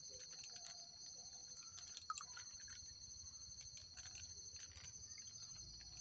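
Faint, steady high-pitched insect chorus trilling on two pitches, with scattered soft clicks and one sharper click about two seconds in.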